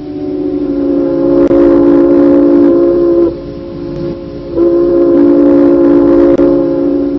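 Emergency alert alarm tone: a loud, steady horn-like chord of several notes that fades in at the start, drops quieter for about a second in the middle, then comes back at full strength.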